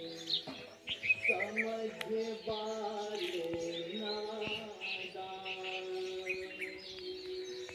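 Birds chirping in short high calls over background music with long held notes.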